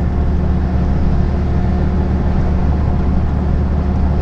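Heavy truck cruising at steady motorway speed, heard inside the cab: a constant low engine drone mixed with road and wind noise.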